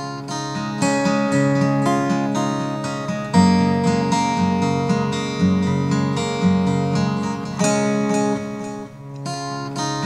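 Background acoustic guitar music, plucked and strummed, with fuller chords coming in about three seconds in.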